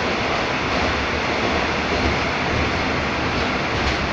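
Rusich metro train running at speed through a tunnel, heard from inside the car: a steady, loud roar with no breaks.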